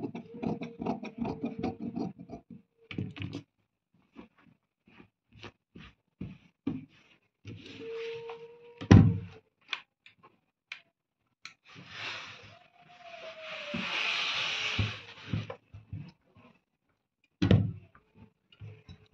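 Large tailor's shears snipping through layered cotton fabric in a quick run of cuts. Then scattered handling knocks and rustles, one sharp thump about nine seconds in, and a steady hiss lasting about three seconds in the second half.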